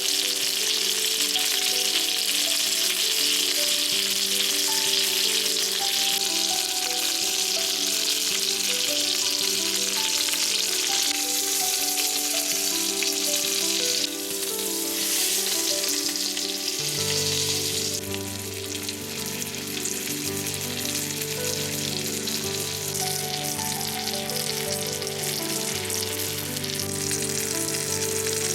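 Food frying in hot oil in a pan: a loud, steady sizzle that starts abruptly and eases somewhat past the middle. Background music with sustained notes plays throughout, a bass line joining about two-thirds of the way in.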